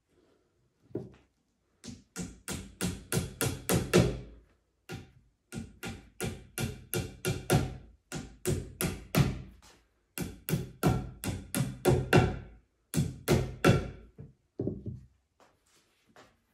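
Hammer blows on a chipboard flat-pack furniture panel: quick runs of sharp taps, about four or five a second, broken by short pauses.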